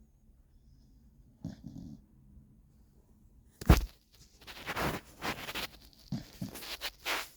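Beagle snoring in its sleep: a faint breath early on, then a sudden loud burst about halfway in, followed by several breathy snores in quick succession.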